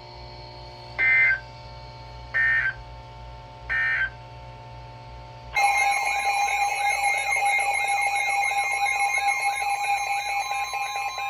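Weather-radio emergency alert signalling: three short, shrill digital data bursts about 1.4 seconds apart, the EAS end-of-message code closing a warning broadcast. About five and a half seconds in, a loud warbling electronic alert tone starts and holds, announcing the next warning.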